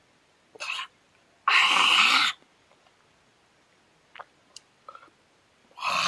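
A man coughing just after a peg of whisky. There is a short cough, then a loud, rough one about a second and a half in, and another near the end.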